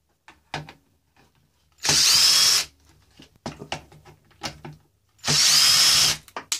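Cordless drill/driver backing bolts out of a 26cc weed eater engine's recoil starter cover: two bursts of about a second each, each spinning up with a rising whine. Clicks and knocks from handling the cover and bolts come between the bursts.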